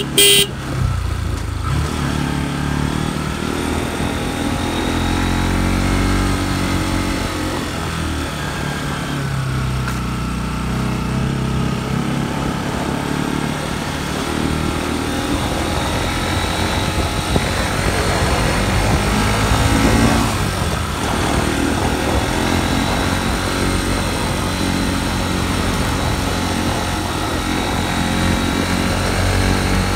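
Motorcycle engine running while riding, its pitch rising and falling gently as the speed changes. A brief loud burst comes right at the start.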